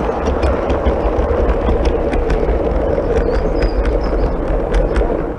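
Gauge 1 model train of GWR coaches rolling past close by: a steady rumble of wheels on the rails, with scattered clicks as the wheels cross rail joints.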